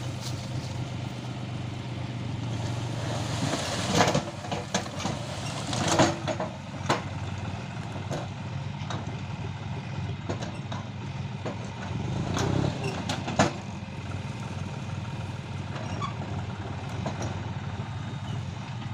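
Backhoe loader's diesel engine running steadily, with several sharp clanks and knocks over it, the loudest about four, six and thirteen seconds in.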